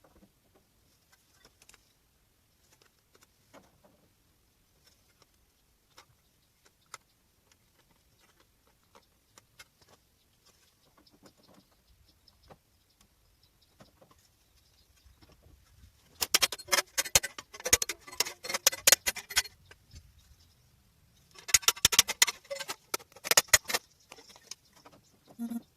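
Hand tool worked against the car's sheet-metal fender: faint scattered ticks, then two bursts of rapid scraping strokes about three seconds apart, starting past the middle.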